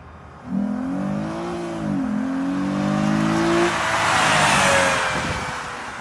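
2008 Lexus IS350's 3.5-litre V6 accelerating hard past: it revs up, drops in pitch about two seconds in at a gear change, and revs up again. It is loudest with a rush of noise as the car passes about four to five seconds in, then falls in pitch and fades.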